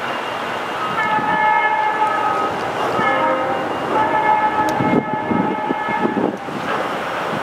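Diesel locomotive's multi-chime air horn sounding a long blast, a short one and another long one, the close of the long-long-short-long signal for a grade crossing as the train approaches.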